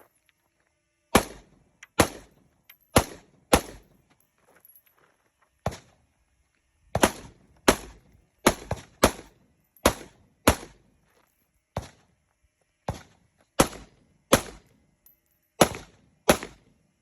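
AR-15 rifle in .223 Remington firing single aimed shots, about seventeen in all, at an irregular pace of roughly one every half second to a second, with a couple of short pauses between strings.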